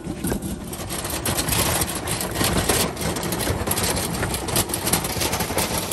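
Wheeled trolley loaded with equipment rolling over a rough concrete path, its load rattling: a steady run of many small knocks.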